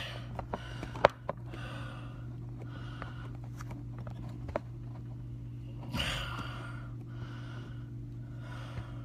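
Plastic pill bottles and a phone being handled and set down on a desk, with a few sharp clicks (the loudest about a second in), over a steady low hum and repeated breathing close to the microphone.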